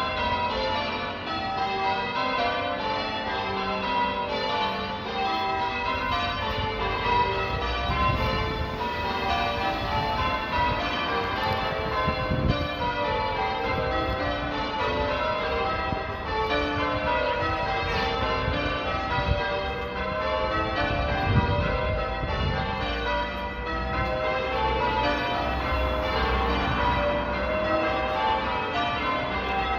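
Church bells ringing, a continuous stream of overlapping bell strokes following one another at an even pace.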